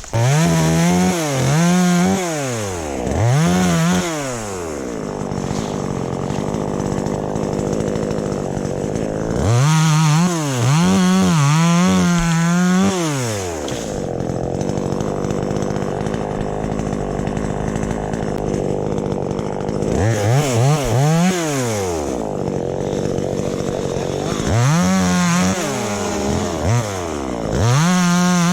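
Two-stroke chainsaw running. It starts abruptly, and its pitch rises and falls in quick arches as the throttle is revved in repeated bursts, near the start, around ten seconds in, around twenty seconds in and near the end, with steadier running between.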